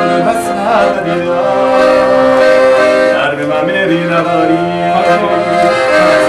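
Piano accordion playing the slow melody of a Persian song, in long held notes over chords.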